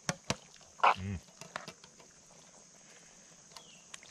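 A metal spoon stirring soup in a 12-inch Lodge cast-iron Dutch oven, with a couple of sharp clicks of spoon on iron at the start and a few lighter ticks after. A short grunt-like voice sound about a second in, and a steady high insect hiss underneath.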